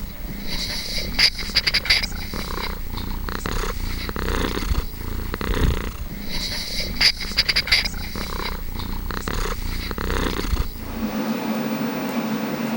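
Domestic cat purring close to the microphone in a deep, pulsing rumble, with two short clusters of sharp clicks. About 11 s in, the purring stops and a steady low hum remains.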